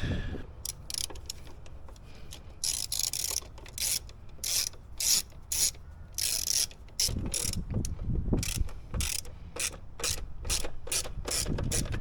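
Hand ratchet being worked in short strokes, its pawl clicking in repeated bursts, with some low knocks and handling noise partway through.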